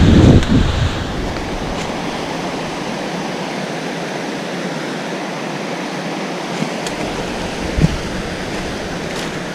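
Steady rushing of a waterfall, with wind buffeting the microphone in the first second.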